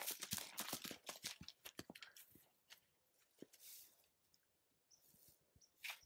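A horse's hooves crunching and rustling through dry grass as it walks close by, then a few faint scattered clicks. A few brief bird chirps near the end.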